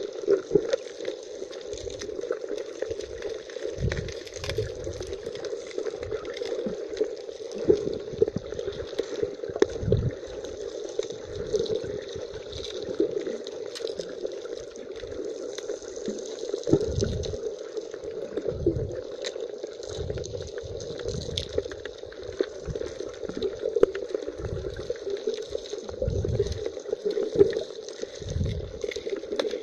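Muffled sea water heard underwater: a steady swishing wash with irregular low thumps and scattered sharp clicks.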